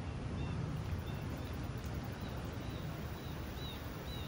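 Outdoor background: a steady low rumble, with a bird chirping faintly over and over in short high notes.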